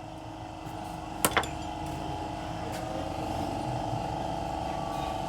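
Steady mechanical running hum in a car workshop, with one sharp metallic knock about a second in.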